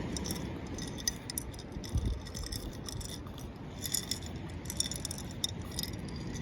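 Seashells clinking and rattling against the inside of a plastic bottle of water and baby oil as it is tipped and shaken: a scattered run of small, sharp clicks.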